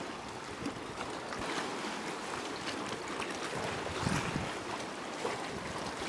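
Choppy sea water washing and splashing against shore rocks in a steady rush, a little louder about four seconds in.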